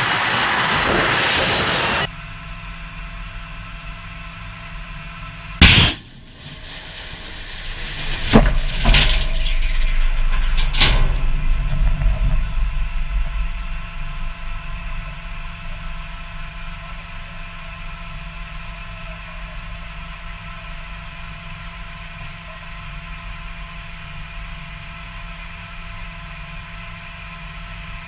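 Explosions: one sharp blast about six seconds in, then a series of heavier blasts from about eight to eleven seconds in with deep rumbling that dies away by about fourteen seconds. A steady vehicle engine hum runs underneath.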